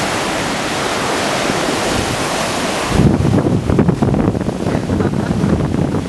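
Sea surf breaking and rushing through shallow water as a steady hiss. From about halfway through, a heavier, uneven low rumble of waves and wind gusting on the microphone joins in.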